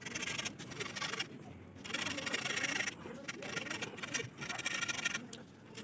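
Utility knife blade scraping along a green bamboo pole in repeated rasping strokes, about one a second.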